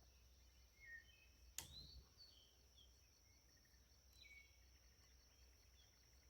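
Near silence: faint, scattered bird chirps over a steady high insect buzz, with one sharp click about one and a half seconds in.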